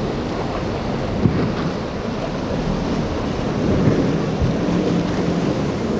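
Wind rumbling on the microphone over waves, with a boat's engines droning more steadily from about halfway through.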